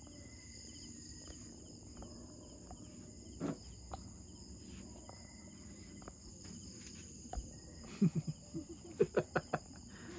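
Night chorus of crickets, a steady high-pitched trill throughout. Near the end a quick run of short, louder low calls breaks in over it.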